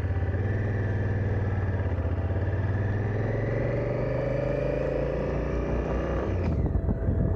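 Honda Africa Twin CRF1000's parallel-twin engine running under way, its pitch rising slowly, then falling away about six and a half seconds in.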